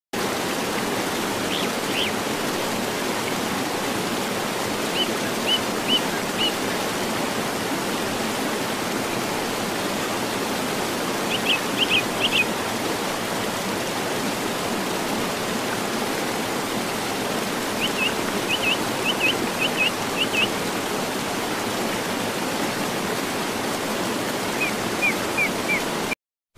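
Steady rush of running water, a stream-like ambience, with short runs of high chirps every few seconds. It cuts off suddenly near the end.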